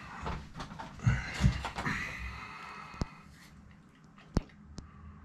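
A person sitting down in a padded gaming chair: clothing rustling and the chair shifting, with two dull thumps about a second in. Two short sharp clicks follow, a little over a second apart.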